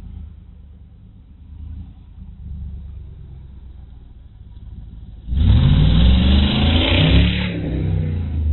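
Dodge Charger police car's Hemi V8, a low rumble at first, then about five seconds in a sudden loud burst of hard acceleration with the engine note climbing in pitch. The engine has a freshly rebuilt collapsed lifter and camshaft. It is heard through a security camera's microphone.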